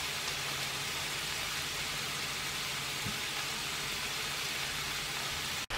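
Chicken and vegetables sizzling steadily in a frying pan, a constant hiss with a faint low hum underneath.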